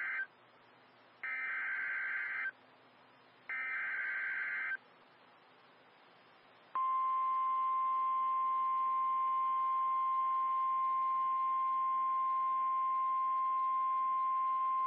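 NOAA Weather Radio emergency alert. It opens with the end of one SAME digital header burst, then two more short bursts of warbling data tones, about a second apart. After a short gap comes the steady 1050 Hz warning alarm tone, held for about eight seconds. This tone signals that a warning, here a flood warning, is about to be broadcast.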